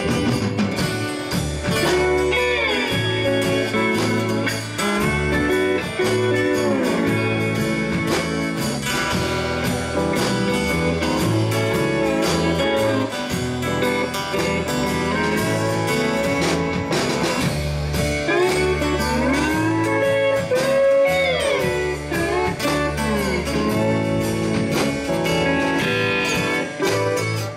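Live rock band playing an instrumental passage: an electric guitar lead with bent, gliding notes over bass guitar and drums.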